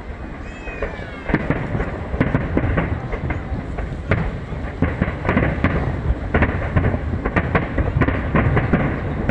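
Aerial fireworks going off: a brief whistle near the start, then from about a second in a dense, continuous barrage of bangs and crackles.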